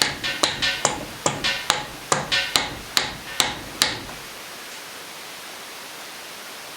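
Mallet knocks on the cast cylinder of a 1979 Suzuki DS125 two-stroke engine, about ten evenly spaced taps with a short metallic ring, two or three a second, stopping about four seconds in. The cylinder is being knocked loose from a tightly sealed base gasket.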